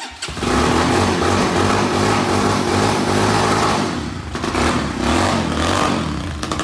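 Newly assembled Raleigh kit motorcycle's engine catching on its first start and running steadily, with a brief dip about four seconds in.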